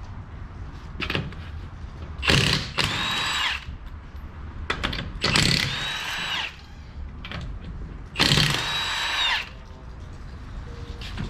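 Cordless impact wrench spinning off a car wheel's 21 mm lug nuts: three bursts of about a second each, a few seconds apart, each opening with a sharp hammering start and running on as a high whine.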